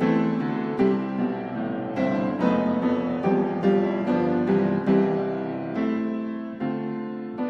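Background piano music, single notes and chords struck in steady succession.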